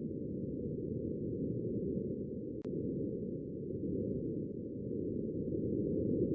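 Wind on the surface of Mars picked up by the Perseverance rover's microphone: a steady, muffled rushing noise with no high end.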